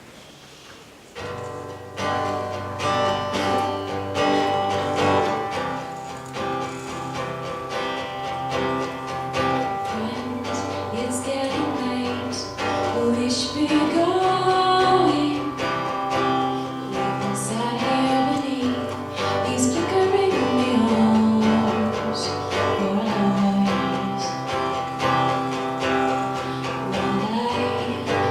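A song performed live: instrumental accompaniment starts about a second in, and a singing voice comes in over it.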